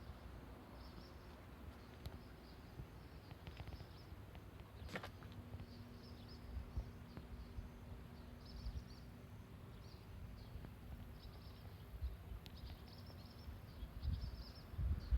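Faint outdoor ambience: scattered short, high bird chirps over a low rumble. A faint steady hum comes in about five seconds in.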